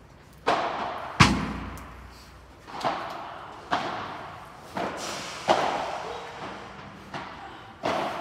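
Padel rally: about eight sharp hits of the ball off padel rackets and the court, one every second or so, each ringing on in a large hall. A heavier thud, the loudest, comes about a second in.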